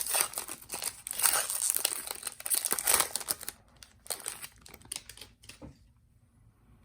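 Trading-card pack wrapper being torn open and crinkled: a dense crackling for about three and a half seconds, then a few scattered crinkles.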